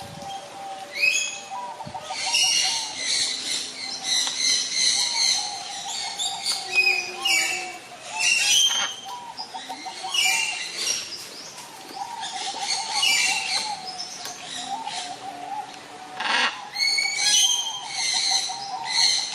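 Parrots calling: repeated short, rising chirps and squawks in quick clusters, over a lower wavering tone that runs almost throughout.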